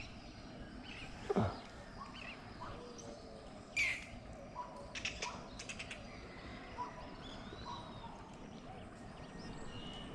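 Several birds chirping and calling, with a louder call or two and a quick run of clicks about five seconds in.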